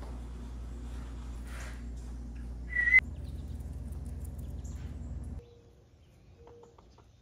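Birds chirping over a steady low rumble, with one loud, short chirp a little under three seconds in. The rumble cuts off suddenly about five seconds in, leaving quieter scattered bird calls.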